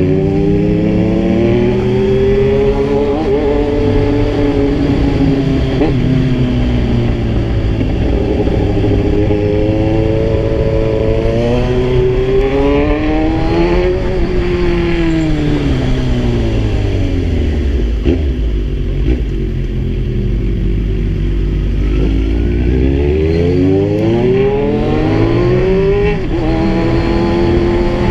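Kawasaki Z1000 inline-four engine on a ride, its pitch climbing under acceleration and falling away as it slows, several times over. Around two-thirds of the way through it drops to a low, steady note, then picks up again near the end.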